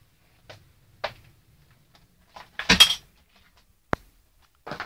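Scattered light clicks and knocks, with a louder clinking clatter a little past halfway and a sharp click about four seconds in.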